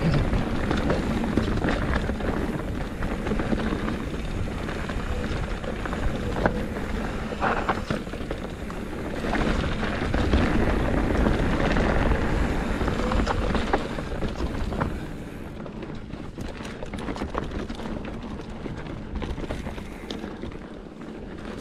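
Wind rushing over the microphone with rattling and clatter from riding fast over rough trail ground, easing off about two-thirds of the way through.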